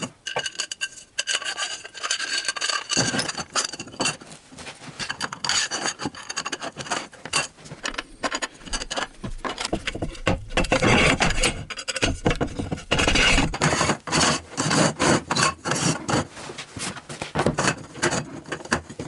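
Aluminium extrusion profiles and small metal fittings being handled and screwed together on a wooden bench: rubbing and scraping of metal on wood and metal, with many small clicks, densest and loudest about two thirds of the way through.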